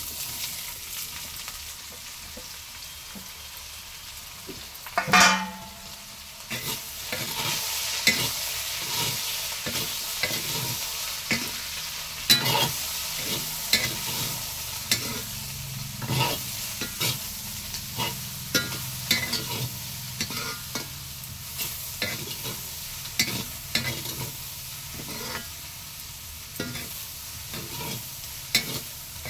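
Chopped potatoes and ivy gourd frying in hot oil in a kadhai, sizzling steadily, while a spatula scrapes and knocks against the pan about once a second as they are stirred. A loud clank about five seconds in, after which the sizzling grows louder.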